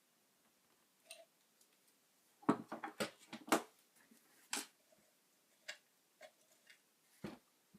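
Irregular clicks and light knocks of small hard parts or tools being handled. A quick cluster comes about two and a half seconds in, then single clicks every second or so.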